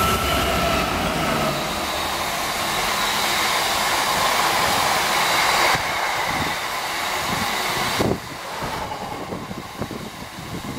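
A Class 66 diesel locomotive runs through at speed, then a long rake of open box wagons rumbles and knocks past on the rails. The noise drops sharply about eight seconds in.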